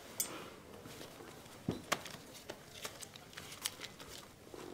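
Quiet room with a few light clicks and knocks and soft rustling as people handle mugs and things on a wooden table, with one duller knock a little under two seconds in.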